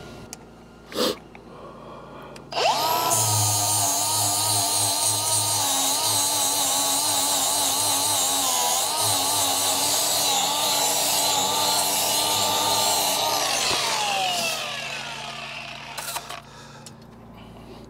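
Small handheld grinder with an abrasive disc grinding down a weld on a steel track frame. It spins up about two and a half seconds in, whines steadily with the pitch wavering as the disc bears on the steel, then winds down with a falling whine near the end. There is a single knock about a second in.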